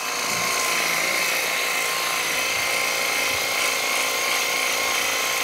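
Fixnow 500E 24-volt cordless pressure washer running steadily, its pump motor whining evenly as the water jet sprays onto stone paving slabs to rinse off dirt.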